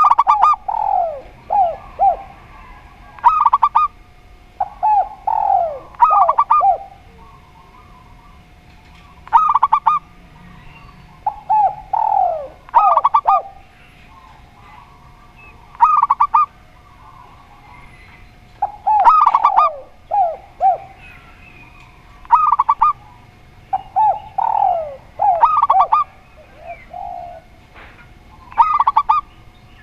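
Spotted dove and zebra dove cooing in turn, repeated phrases a few seconds apart: some are quick runs of notes, others slide downward.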